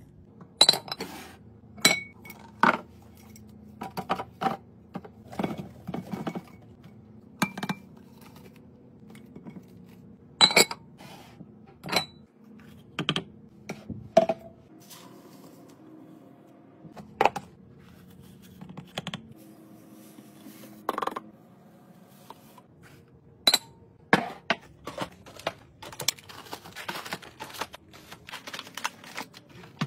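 Irregular sharp clinks, taps and knocks, some with a brief ringing, as glass jars and clear plastic storage containers are handled and filled: a plastic scoop working through beads in a glass jar, powder poured into a glass canister, packages set into a plastic bin.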